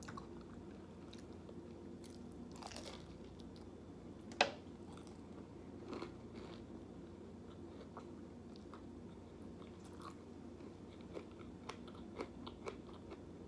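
Close-miked chewing and biting of a person eating, with scattered soft crunches and a few sharp clicks, the loudest about four and a half seconds in.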